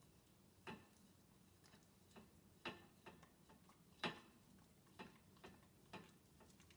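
Dog licking a dinner plate in a dishwasher's lower rack: faint, irregular clicks and taps of tongue and muzzle on the plate, about one every half second to a second, the loudest about four seconds in.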